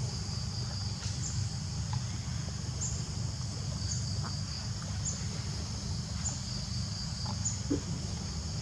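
Insects calling steadily, a high continuous buzz with a short high chirp repeating about once a second, over a steady low rumble.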